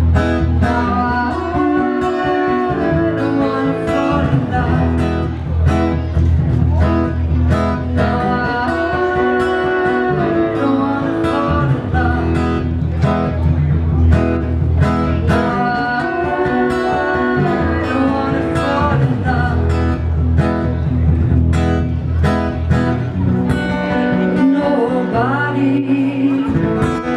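Live amplified music: a woman singing into a microphone while a man plays acoustic guitar, heard through the stage's PA speakers, with steady low notes underneath. The low end drops out briefly near the end.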